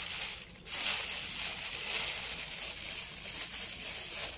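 Thin clear plastic bag crinkling and rustling as it is pulled over a seed pot and tucked around it as a cover, with a brief lull about half a second in.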